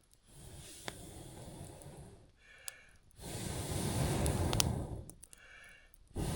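Campfire burning down to coals: a steady rushing noise with scattered sharp crackles and pops.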